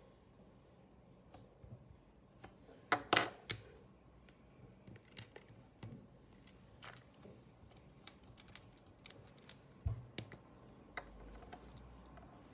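Small plastic Lego pieces clicking as they are pulled apart and set down on a glass tabletop: irregular sharp clicks, loudest in a quick cluster about three seconds in, with a duller knock near ten seconds.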